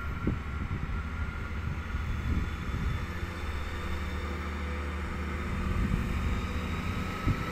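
Diesel multiple unit's underfloor engines running, a steady low drone heard across the station.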